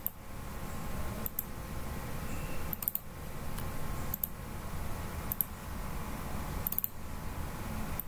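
Computer mouse button clicking about six times, roughly a second and a half apart, as points for arcs are picked in a drawing program. Under the clicks runs a steady low hum.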